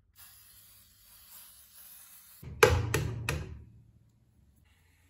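Aerosol waterproofing spray hissing faintly onto MDF discs for about two seconds, then three loud knocks with a dull low thud, about a third of a second apart.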